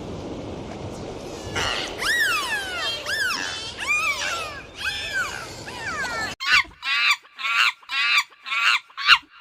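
Animal calls: overlapping high calls that rise and fall in pitch over a noisy background, then, after an abrupt cut, a clean run of six short calls, each falling in pitch, about half a second apart.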